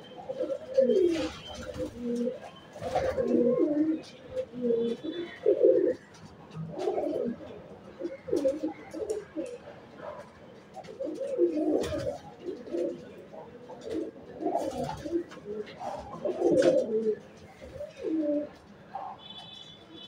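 Domestic pigeons cooing over and over, several birds' low, throaty coos overlapping with only short gaps.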